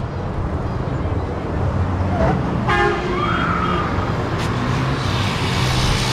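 Road traffic running steadily past, with a vehicle horn tooting briefly about three seconds in and a vehicle passing louder near the end.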